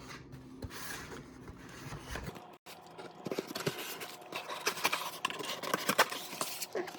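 Cardboard toy packaging being handled and worked open: irregular scraping and rustling with many small clicks, busier in the second half.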